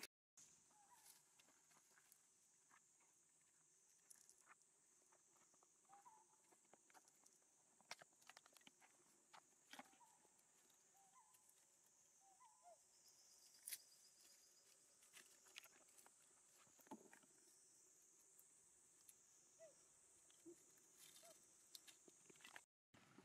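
Near silence: faint outdoor ambience with a steady high hiss, scattered light rustles and clicks, and a few faint short chirps.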